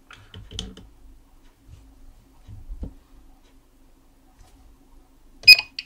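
Small handling clicks and a soft knock as a watch movement is set into a timegrapher's microphone stand, over a faint steady hum, then one loud sharp click near the end.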